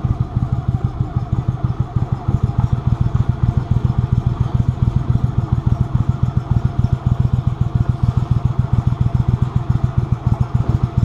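Mudbuddy Sport V 44 hp mud motor running steadily under way, driving a boat through a shallow, weedy marsh channel, with a rapid, even beat from the engine.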